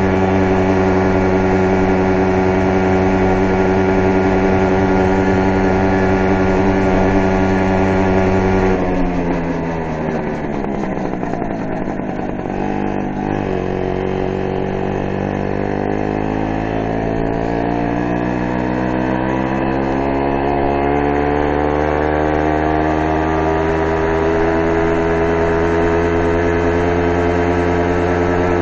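A vehicle motor running at a steady pitch, then dropping in pitch about nine seconds in and climbing gradually again through the rest as it slows and picks speed back up.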